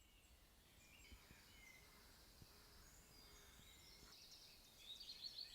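Faint birdsong: several birds chirping and trilling over a quiet background, growing busier and louder near the end.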